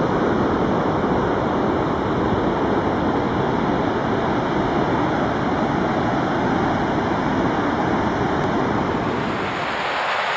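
Vøringfossen waterfall: a steady rush of falling water plunging into its gorge. The sound shifts and grows a little thinner about nine seconds in.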